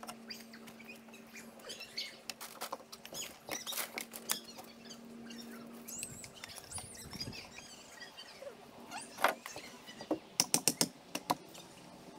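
Light knocks, scrapes and clicks of a plywood siding panel being handled and set against a house wall, with a quick run of about six sharp taps a little past ten seconds in.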